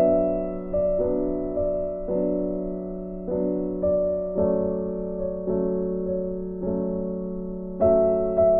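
Soft, slow background instrumental music: gentle notes struck a little under twice a second, each fading away, over a steady held low tone.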